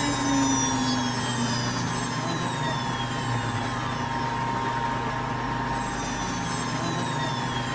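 CNC router running, with steady machine noise and high whines that slowly fall in pitch; the sound cuts off abruptly at the very end.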